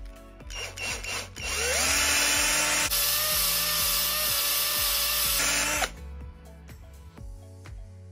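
Cordless drill motor briefly blipped a few times, then spinning up with a rising whine about a second and a half in, running steadily for about four seconds and winding down, its bit turning in the bushing of an amplifier potentiometer. Background music plays under it.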